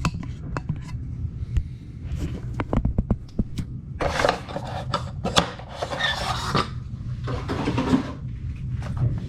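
Box and packaging being handled: rustling and scraping with many scattered clicks and knocks, busiest from about four to seven seconds in.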